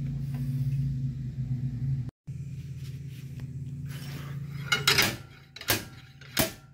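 Slide hammer striking about four times in the second half, sharp metal knocks roughly half a second apart, pulling an old repair bearing out of a Ford F-150 rear axle tube. A steady low hum runs underneath.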